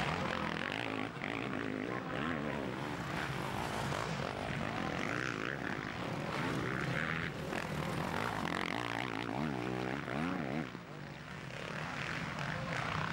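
Motocross bike engines revving hard on the track, their pitch repeatedly rising and falling as the riders work the throttle and shift gears. The loudness dips briefly about three-quarters of the way through.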